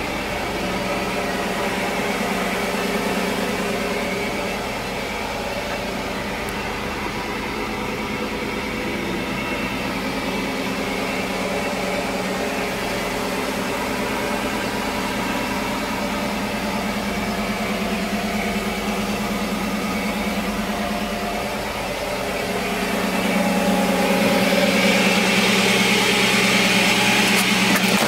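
Truck's 5.3-litre LS V8 with headers running at a steady speed. About three quarters of the way through it gets louder, with more hiss.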